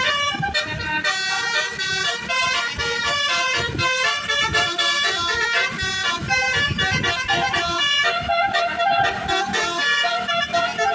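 Tour bus's Basuri telolet musical horn playing a fast, constantly changing melody of horn notes, over low road and engine rumble.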